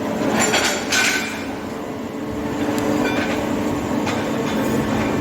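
A few sharp metallic clinks and knocks with a short ring, over a steady machine hum.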